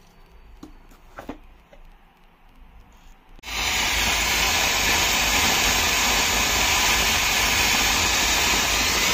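A few faint clicks, then about three and a half seconds in a Rajukanna Brindavan mini fountain firework starts abruptly and sprays sparks with a loud, steady hiss.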